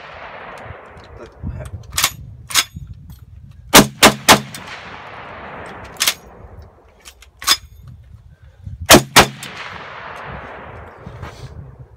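Browning M1919 machine gun firing two shots about half a second apart around four seconds in, and two more in quick succession about nine seconds in, each report ringing out and fading slowly under the range shelter's roof. A few quieter sharp cracks come in between.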